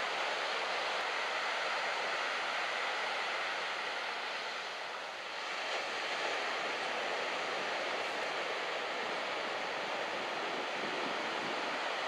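Beach-break surf: waves breaking and whitewater washing toward shore, a steady rush.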